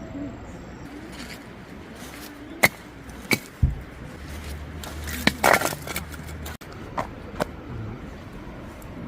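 Camping gear being handled: a scatter of separate sharp clicks and knocks, with a cluster of them a little past the middle, over a low steady hum.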